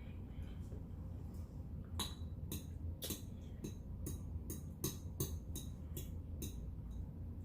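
Cutlery clicking lightly against a plate during a meal, a run of short sharp clicks about two or three a second, starting about two seconds in.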